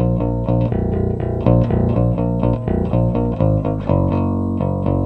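Five-string electric bass playing steady eighth notes along with a hard rock band recording. About four seconds in the bass line drops to a lower note as the post-chorus begins.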